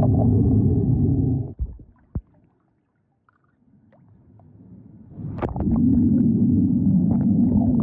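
Loud, muffled underwater rumble and churning of pool water against a submerged camera microphone. It drops away about a second and a half in, leaving a few faint splashy clicks while the camera is out of the water, and returns about five seconds in as the camera goes back under.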